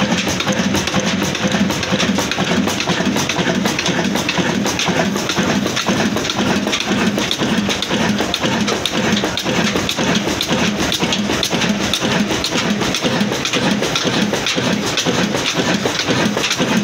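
Old black stationary diesel engine running steadily, with an even beat and constant mechanical clatter.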